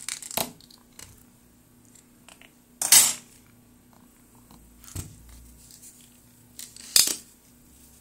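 Sharp clicks and clinks from handling a power adapter's circuit board while a soldering iron works its solder pads: four separate knocks, the loudest about three seconds in, over a faint steady hum.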